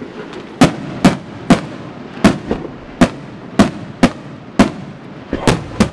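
Aerial firework shells bursting in quick succession: about ten sharp, loud bangs at uneven spacing, roughly two a second.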